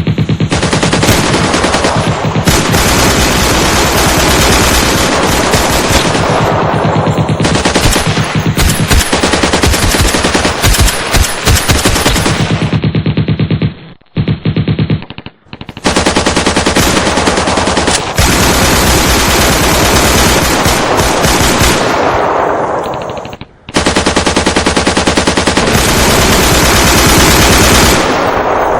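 Sustained automatic machine-gun fire from a firefight, with long rapid bursts overlapping almost without pause. The firing breaks off briefly about halfway through and again about three-quarters of the way in.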